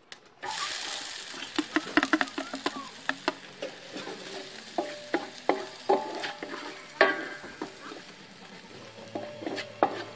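Chopped onion and vegetables dropped into hot oil in a steel disco (plow-disc pan), sizzling loudly from just under half a second in, while a spatula scrapes and clinks against the disc as they are stirred; some of the clinks ring briefly.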